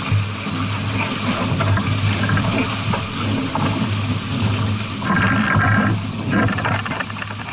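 Water rushing and splashing steadily, as along a sailboat's hull under way, over a steady low hum. About five seconds in, a short higher tone sounds for under a second.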